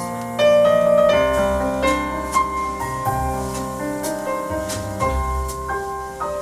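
Recorded music playing on a hi-fi system: a piano passage of single notes struck one after another and left to ring, over a low bass line.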